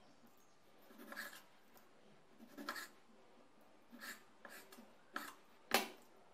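Kitchen knife cutting raw chicken breast on a bamboo cutting board: about six soft, separate cuts, each ending with the blade tapping the wood. The sharpest knock comes about three-quarters of the way in.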